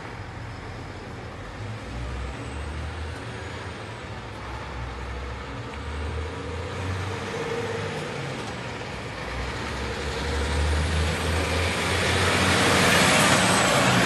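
Diesel engine of a Renault Kerax 370 DCi 8x4 concrete mixer truck driving up close, its low rumble swelling and easing several times and growing louder until it is loudest about thirteen seconds in.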